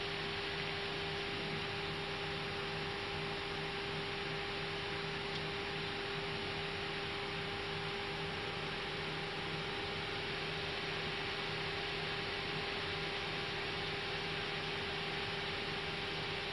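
Steady hum and hiss of an Airbus A320 cockpit on the ground with the engines at idle, carrying a constant mid-pitched tone with a fainter one an octave above it.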